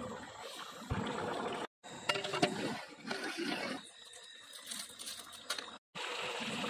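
Goat intestine curry boiling hard in a large pot over a wood fire, bubbling and hissing as steam pours off it. The sound breaks off abruptly twice.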